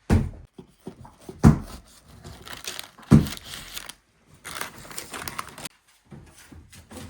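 Crinkling and rustling of something being handled, with three knocks about a second and a half apart.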